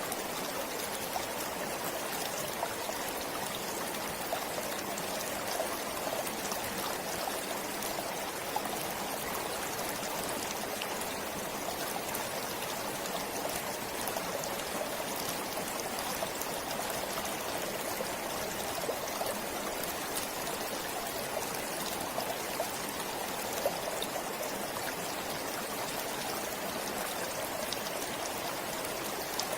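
A forest stream flowing steadily over rocks, with small splashes and trickles.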